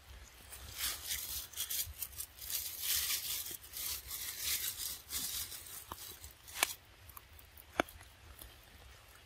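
Irregular close rustling and tearing noises for several seconds, then two sharp clicks a little over a second apart.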